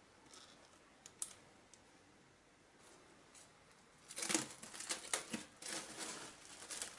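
Plastic cling film pulled off its roll and crinkling: a quick run of crackles starting about four seconds in, after a few faint clicks.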